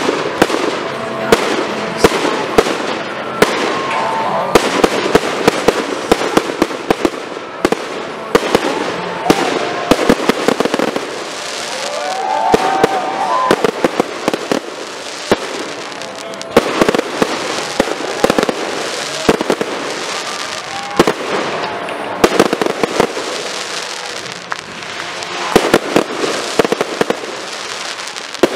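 Fireworks display: a rapid, unbroken barrage of sharp aerial shell bursts over a continuous crackle.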